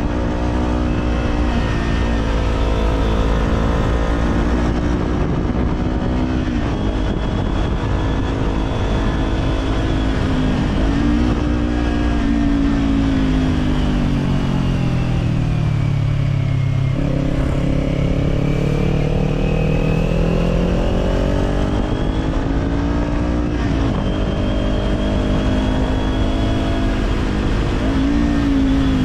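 Kawasaki Z400 parallel-twin engine through an Orion Katya slip-on exhaust, heard from the rider's position while riding: the engine note climbs and drops back at several gear changes. About halfway through it falls away as the bike slows, then picks up again. A steady low rumble of wind and road noise runs underneath.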